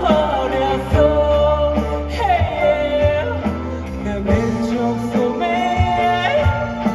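Live rock band playing: a man singing held, gliding melody lines over electric guitars, bass, keyboards and drums, through a PA.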